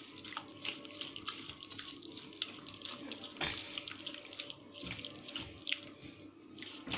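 Wet, squelching clicks and splashes in irregular strokes as an oily chermoula marinade is mixed by hand in a bowl.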